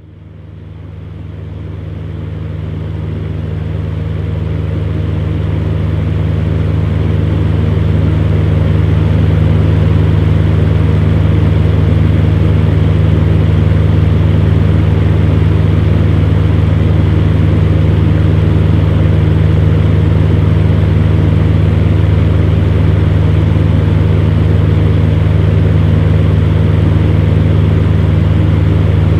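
Electric fan running steadily: an even whoosh of moving air over a low motor hum. It fades in over the first several seconds, then holds level.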